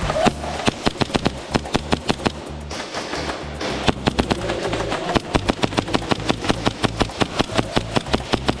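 Airsoft gun firing rapid strings of shots, about seven a second, in two long runs with a pause of a few seconds between them, over background music with a heavy bass beat.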